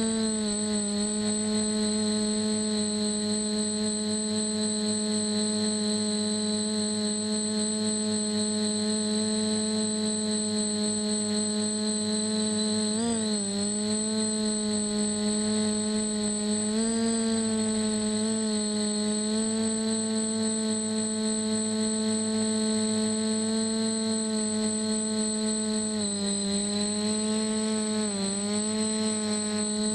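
DJI F450 quadcopter's brushless motors and propellers humming steadily, heard from the GoPro on its frame, with a thin high whine above. The pitch dips and recovers briefly a few times, around the middle and near the end, as the throttle changes.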